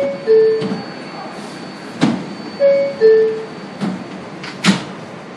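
Subway car door chime: a falling two-note 'bing-bong' sounding twice, near the start and again about two and a half seconds in, the signal that the doors are about to close. Sharp clacks come in between, over the train's steady rumble.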